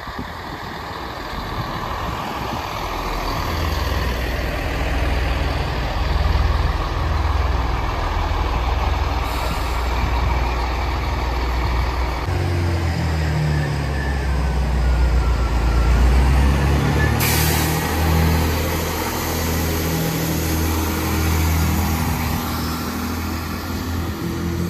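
Chiltern Railways diesel multiple units, a Class 165 and a Class 168, running through the station: their underfloor diesel engines give a deep drone that grows louder and changes note about halfway through. A short sharp noise cuts in about two-thirds of the way through.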